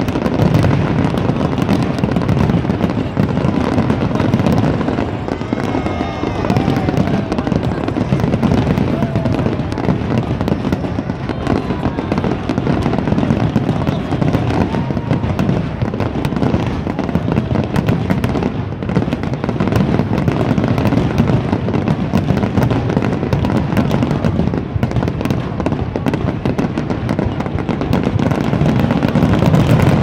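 Fireworks display: a dense, continuous barrage of crackling bangs and pops, with no pauses.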